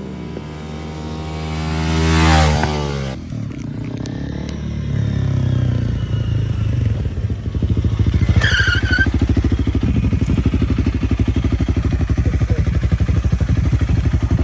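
Honda CRF 300L single-cylinder engine through an aftermarket exhaust, revving up in pitch to a peak about two seconds in and cutting off abruptly. It then runs at a steady lower note, which turns into a louder, evenly pulsing rumble from about eight seconds on.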